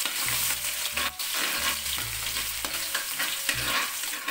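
Chopped garlic and ginger sizzling in hot oil in a metal wok, with a metal ladle stirring and scraping against the pan now and then.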